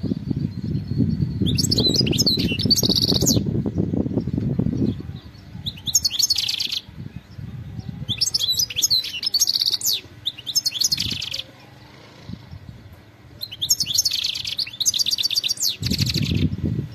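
European goldfinch singing in several bursts of fast, high twittering phrases with short pauses between them. A low rumble sits under the first few seconds and returns near the end.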